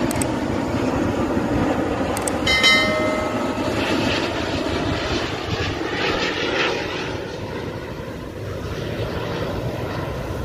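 Airbus A350-941's Rolls-Royce Trent XWB jet engines on final approach: a steady rumble that eases off after about seven seconds. A short, high, chord-like tone sounds briefly about two and a half seconds in.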